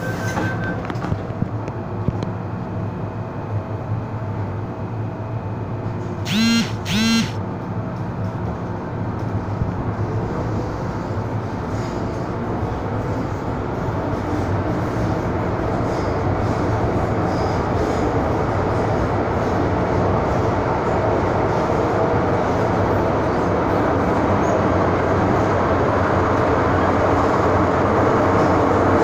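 MTR Island Line M-Train pulling out of a station, heard from inside the car: two short, loud tones about six and seven seconds in, then the train's running noise builds steadily as it accelerates away.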